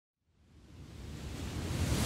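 Rushing, wind-like noise with a deep rumble, fading in from silence and growing steadily louder.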